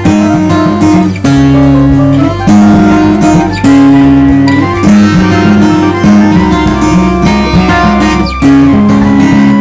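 Background music played on plucked stringed instruments, with held melody notes over a steady bass line.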